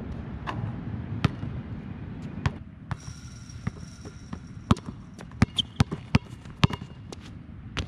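Basketballs bouncing on a court: a string of sharp, irregularly spaced bounces, coming thicker in the second half.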